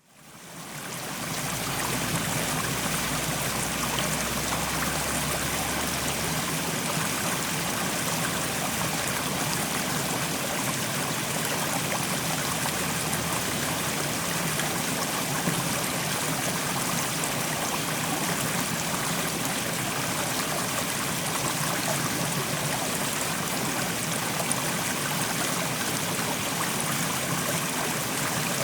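Fast-flowing mountain stream rushing over rocks, a steady full rush of water, fading in over the first second or two.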